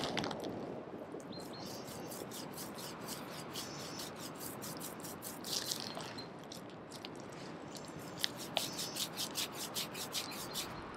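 Fingers rubbing salve into the coarse hair of a horse's lower leg: two runs of quick, scratchy crackling, one a second or so in and one near the end, over a steady background hiss.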